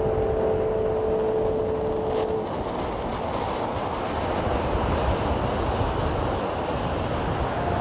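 A last plucked harp note rings on and dies away about two seconds in. Under it runs a steady rush of wind buffeting the microphone, with surf breaking on the shore.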